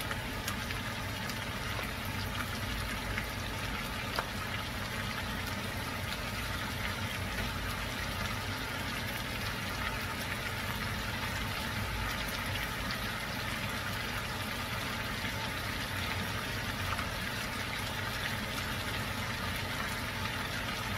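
Pork chunks and sliced onion sizzling in a hot non-stick wok: a steady frying hiss with fine crackle, over a low steady hum. A single click comes about four seconds in.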